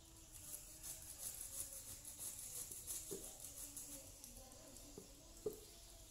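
Faint background with a steady high hiss and a few soft knocks, the sharpest about five and a half seconds in, as a potted plant is handled at its pot.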